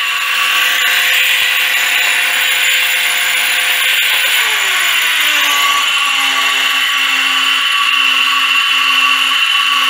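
Small DC motor driving a flywheel and geared DC generator, running with a steady whine. About four seconds in, the pitch falls over a second or so and settles lower: the machine slows down as the generator is loaded when the diode closes the circuit.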